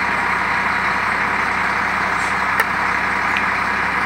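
Heavy diesel engine of a wheel loader running steadily, with a faint tick or two, during an attempt to tow a crashed dump truck.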